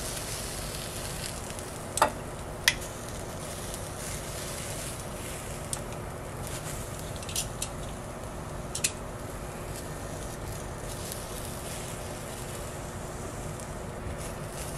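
Green bell pepper pieces sizzling on a hot Dash Mini Griddle, a steady hiss, with a few light clicks of tongs lifting pieces off the griddle plate and dropping them into a bowl.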